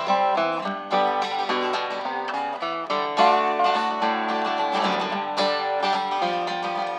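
Acoustic guitar and lap steel guitar playing together in an instrumental passage of plucked notes, with one note sliding down in pitch about five seconds in.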